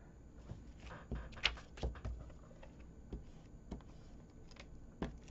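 Paper and cardstock being handled on a tabletop: scattered soft taps and light rustles as a patterned paper panel is pressed onto a card base and the card is set down.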